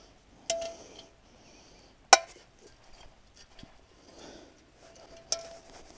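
Metal disc-mower parts knocking together as they are handled: three sharp clanks, the loudest about two seconds in, the first and last leaving a short ring.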